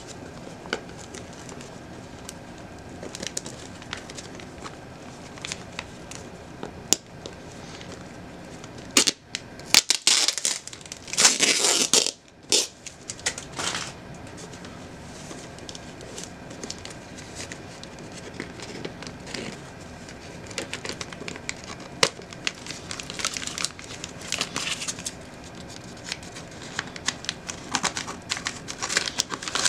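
Brown-paper parcel wrapped in packing tape being crinkled, picked at and torn open by hand, in scattered rustles and crackles. A louder spell of tearing and crumpling comes about ten to thirteen seconds in, and the rustling picks up again near the end.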